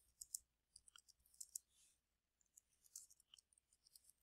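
Faint computer keyboard typing: a quick, irregular run of key clicks.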